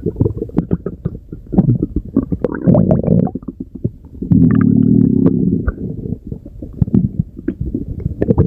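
A human stomach growling and gurgling: a run of quick, low gurgling clicks with two longer low growls, about two and a half and about four seconds in. The second growl is the longer and louder one.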